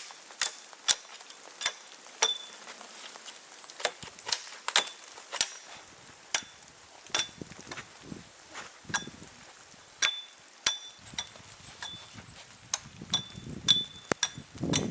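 Repeated sharp knocks and taps at an uneven pace, about one or two a second, some with a brief high ring.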